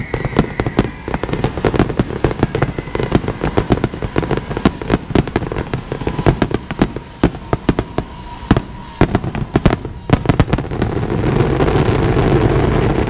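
Fireworks going off in quick succession: sharp, irregular bangs and cracks, several a second. About eleven seconds in they merge into a dense, continuous crackle and hiss that swells.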